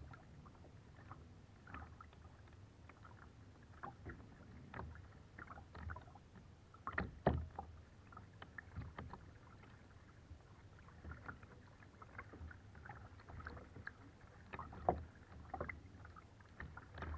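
Kayak paddling on calm water: paddle blades dipping and splashing in irregular strokes over a soft, steady lapping of water, with louder splashes about seven and fifteen seconds in.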